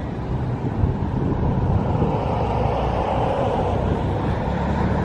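Steady outdoor background rumble with wind on the microphone; a hiss swells a little in the middle.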